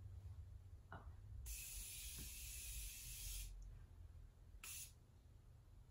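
Aerosol spray can misting toward the face in one continuous hiss of about two seconds, starting about a second and a half in.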